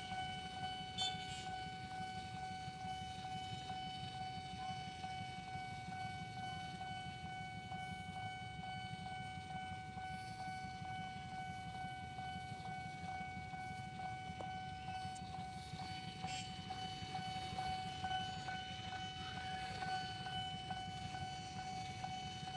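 Railway level-crossing warning alarm sounding one unbroken high tone, over a steady low rumble.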